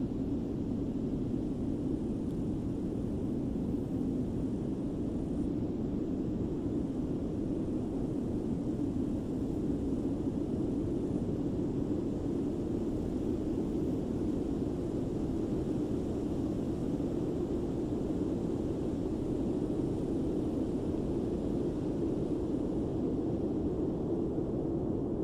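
Steady low roar of the Fagradalsfjall volcanic eruption, an even rumbling noise that holds the same level throughout.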